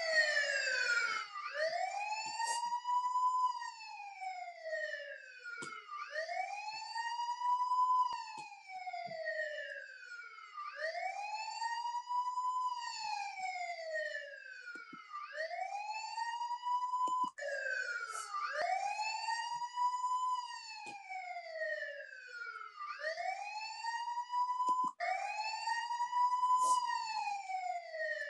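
Police siren wailing: a quick rise and slower fall in pitch, repeating every four to five seconds, with a couple of abrupt breaks where the cycle restarts.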